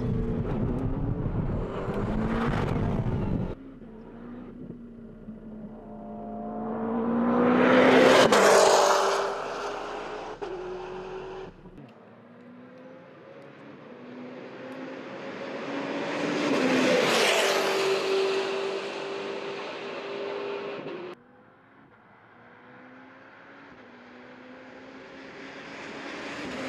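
McLaren MP4-12C's twin-turbo V8 at speed on a circuit, going past close by three times. Each pass swells to a peak and falls away with a dropping engine note, and the shots are joined by abrupt cuts. The first few seconds are a steady engine note with a heavy low rumble.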